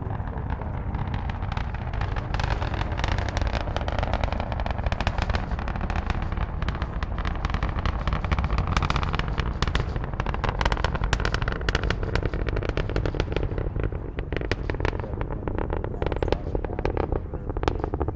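Space Shuttle Endeavour's two solid rocket boosters and three main engines in ascent: a deep continuous rumble overlaid with dense crackling and popping, the crackle growing thicker about halfway through.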